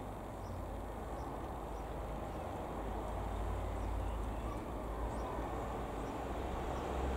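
1946 Aeronca 11AC Chief's Continental A-65 four-cylinder engine and propeller running steadily overhead, growing slowly louder as the plane approaches.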